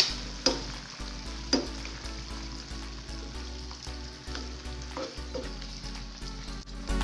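A wet chilli-tomato sambal with prawns sizzling in a nonstick frying pan while a spatula stirs it, knocking and scraping against the pan a few times, most sharply at the start.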